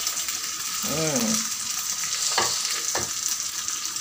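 Onions, tomatoes and green chilies frying in soybean oil in a wok, with a steady sizzle. A short rising-and-falling tone comes about a second in, and two sharp knocks come in the second half.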